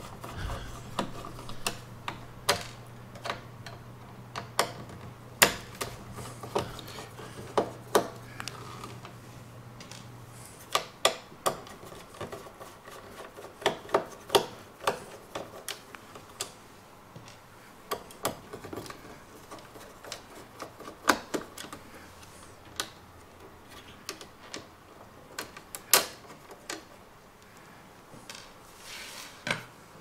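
Small screwdriver working screws out of a Night Owl DVR's plastic case, with irregular light clicks and taps of metal on plastic and screws set down on a wooden workbench. A low steady hum stops about a third of the way in.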